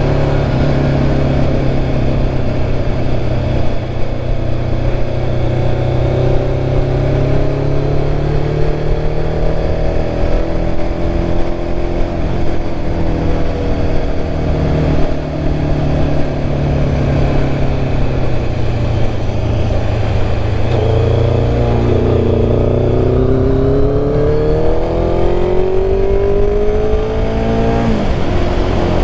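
1996 Kawasaki Ninja ZX-11's inline-four engine running under way with wind rush, its pitch rising and falling at cruising pace. In the last several seconds the engine climbs steadily as the bike accelerates, then its pitch drops sharply near the end.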